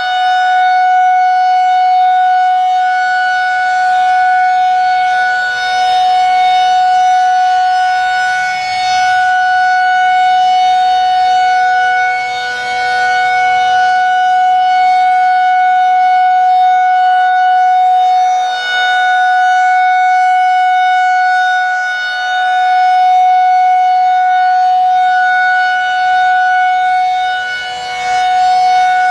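Federal Signal 2001-130 rotating electromechanical outdoor warning siren sounding the steady Alert signal: one loud, unchanging tone that swells and dips slightly in loudness every few seconds as the siren head rotates.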